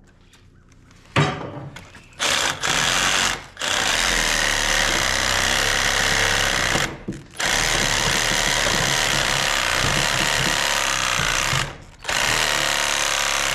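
Reciprocating saw cutting through an oak post in several long runs with short pauses, finishing the last inch of a notch deeper than the circular saw can reach. A single sharp knock comes about a second in, before the saw starts.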